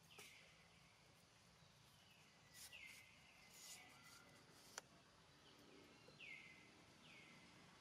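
Faint forest ambience: a few short chirps, each falling in pitch, repeat about five times over a faint steady whine, with one sharp click about two-thirds of the way through.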